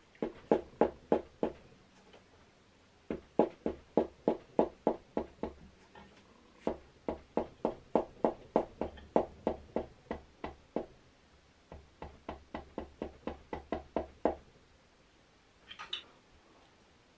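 Dull knocks, about four a second, in four runs with short pauses: the end of an orange plastic hammer tapping a forged piston down its cylinder bore in a Subaru EJ25 block, to line the piston's wrist-pin bore up with the connecting rod. A brief clatter about a second before the end.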